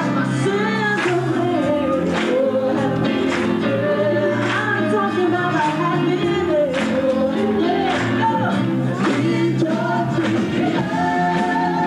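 A live rock band playing: a sung lead vocal over bass guitar and drums, with a sharp drum hit about once a second.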